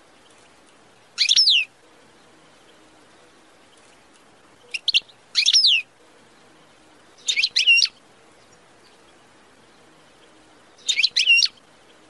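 Small songbird giving short bursts of high, quickly sweeping chirps, four times, a few seconds apart.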